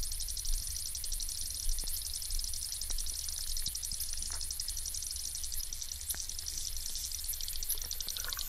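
Underwater hydrophone recording in a lake: a steady high-pitched buzzing and whirring of aquatic life, made of rapid fine ticks, over a low rumble, with a few faint clicks.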